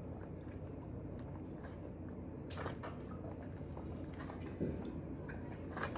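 A person chewing soft food close to the microphone, with faint clicks and two short sharper mouth sounds, one about two and a half seconds in and one near the end, over a steady low background hum.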